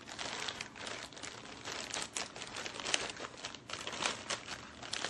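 Clear plastic zip-top packaging bag crinkling and rustling in quick, irregular crackles as a small fabric bag is pulled out of it.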